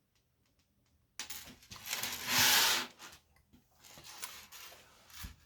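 Small brass plumber's chain links and hardware being handled on a work surface. A loud scraping rustle swells about a second in and stops a couple of seconds later, followed by smaller rustles and a short low thump near the end.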